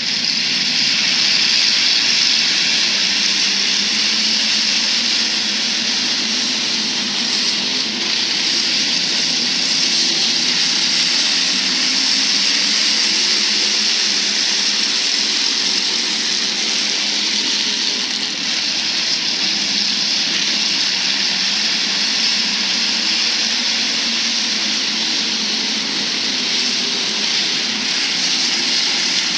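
A field of IMCA Hobby Stock race cars running at speed, their engines blending into one loud, steady roar with no single car standing out.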